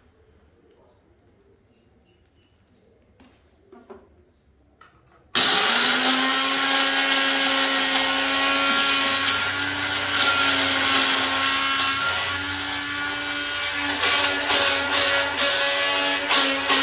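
Electric blender grinding dried eggshells into powder. It switches on suddenly about five seconds in and runs steadily with a strong hum. Near the end the sound turns uneven and rattling.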